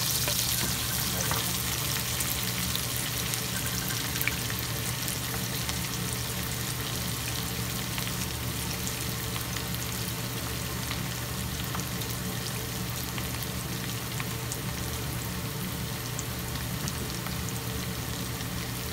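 Sliced onion and ginger sizzling in hot oil in a wok while a spatula stirs them, with faint crackles and a steady low hum underneath.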